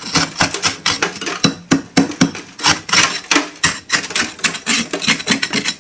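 A metal spoon scraping into thick frost built up inside a freezer, in quick, uneven strokes, about four a second.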